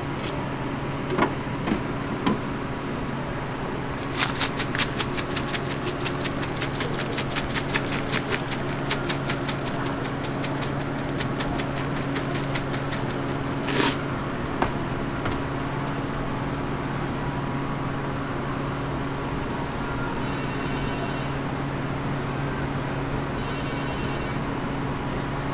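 Steady electrical hum from kitchen equipment. Over it, several seconds of fast crackling as crunchy cereal topping is crumbled by hand onto a cream-spread waffle, with a few scraping clicks before it. Near the end come two short bursts of electronic beeping.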